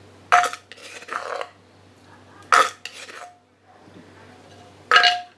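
Cutlery clinking against dishware: three sharp clinks, each with a short ringing tone, about two seconds apart, with lighter scraping and handling sounds between them.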